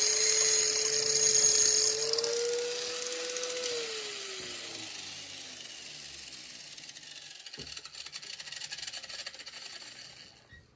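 Warrior angle grinder running with a high hiss from its wheel for about two seconds. The motor's whine then rises slightly, and after the trigger is released about three and a half seconds in, it winds down and fades, falling in pitch. Faint ticks follow near the end.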